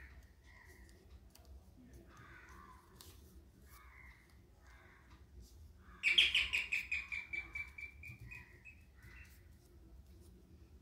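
A bird calling in the background: a loud, rapid trill about six seconds in that falls in pitch and fades over about two seconds, with softer short chirps before and after.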